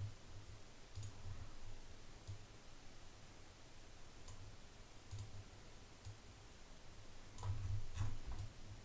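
Faint computer mouse clicks, a few scattered single clicks and a closer cluster near the end, over a low hum.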